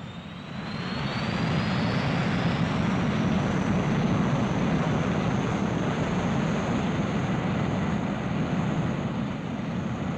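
Jet aircraft engines running: a steady rush that swells about a second in, with a thin high whine rising in pitch over the first few seconds and then holding.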